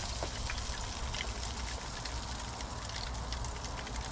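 Hot oil in an electric deep fryer sizzling, with scattered small pops, as a wire basket of batter-coated fish pieces is lifted out to drain. The coating has just been given a short first fry to crisp it, not to cook the fish through.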